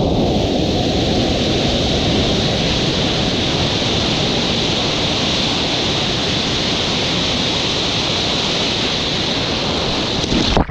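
Steady loud rush of surf water, with wind noise on the microphone of a surfer's point-of-view camera; the hiss sets in suddenly at the start and cuts off abruptly at the end.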